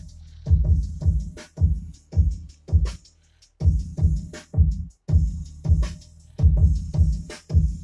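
Hip-hop break beat played off a 7-inch scratch-tool vinyl record: a drum loop of heavy, evenly spaced kick and snare hits. The beat drops out briefly about three seconds in, then comes back.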